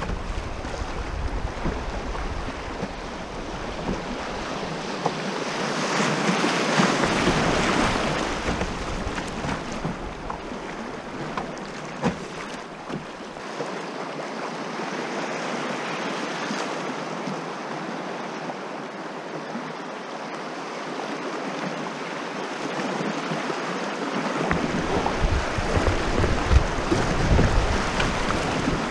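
River water rushing and splashing around a canoe's hull as it runs through fast riffles, with some wind on the microphone. The rush swells louder about six seconds in and again near the end.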